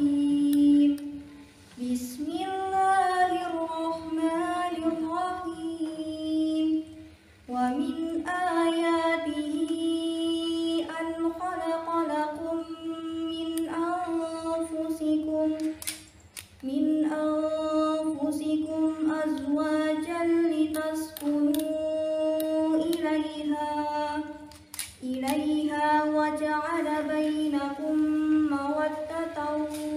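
A young woman's voice reciting the Quran in Arabic in the melodic, sung style, through a microphone. It comes in long held phrases with short pauses for breath.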